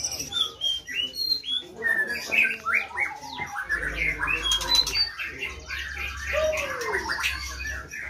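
White-rumped shamas (murai batu) in breeding cages singing: a busy run of varied short whistles, chirps and sliding notes.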